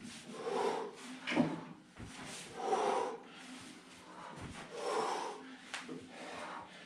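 Hard breathing: a heavy exhale about every two seconds from a person doing jumping exercises, with a couple of dull thuds of bare feet landing on the floor.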